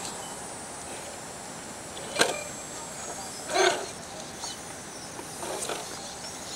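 Radio-controlled rock crawler working its way over rock: a faint steady electric motor whine, a sharp click about two seconds in, and a short louder burst of noise about halfway through.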